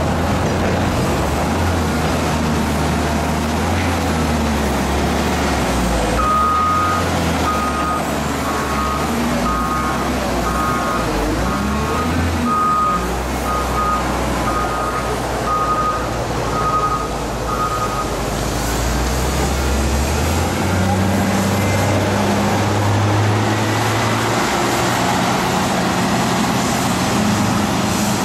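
Heavy diesel machinery such as a wheel loader running with a low, steady engine hum, and a reversing alarm beeping about once a second from several seconds in for roughly twelve seconds. The engine note steps up about twenty seconds in.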